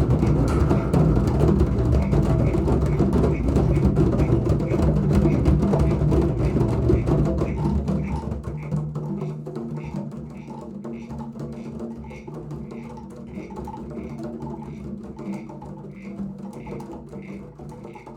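A group of children playing drums together as a rainstorm: a loud, dense rumble of beating that dies down about eight seconds in to softer, steady tapping at about two taps a second.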